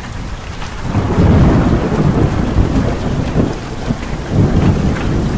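Heavy rain falling with a long roll of thunder that swells about a second in and rumbles on, rising and falling.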